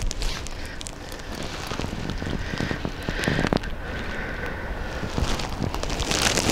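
Dense crackling and rustling over a low wind rumble on the microphone, with a brief brighter hiss at the very end.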